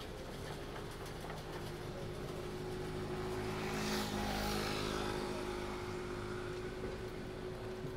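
A motor engine close by, running with a steady hum of unchanging pitch. A louder swell of engine and rushing noise builds to its peak about halfway through, then eases off.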